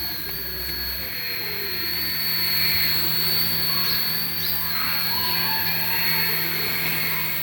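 Small electric motor of a radio-controlled toy running steadily with a high, thin whine.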